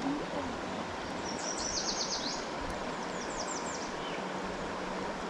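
Steady rushing of a trout stream, with a small songbird singing two quick, high trilled phrases over it about a second in and again around three seconds in.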